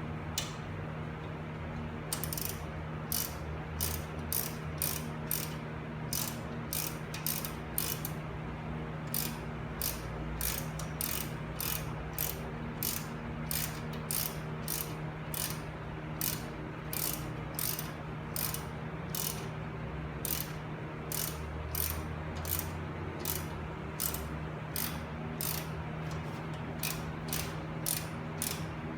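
Hand ratchet wrench clicking through repeated strokes, about two clicks a second, over a steady low hum.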